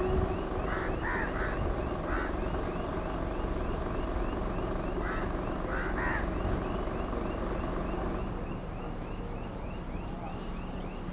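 Rumble of a departing passenger train's coaches rolling away on the track, easing off slightly near the end. Birds call over it, with a rapid repeating chirp and a few short calls.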